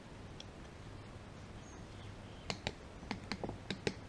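A run of light, sharp metallic clicks and taps, irregular and about six a second, starting about two and a half seconds in: a hand tool working at the nut of a Land Rover Series 2a differential's pinion flange.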